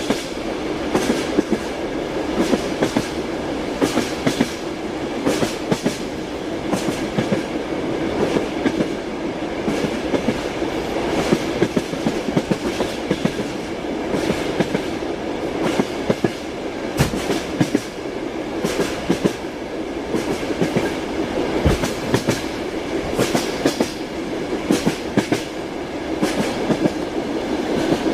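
Train wheels clattering over the rail joints: a steady rumble of the moving train with sharp clacks recurring every second or so.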